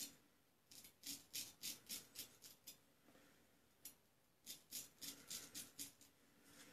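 Straight razor scraping through beard stubble on a lathered cheek in short, quick strokes. A run of about seven faint scrapes comes first, then a single one, then another run of about six.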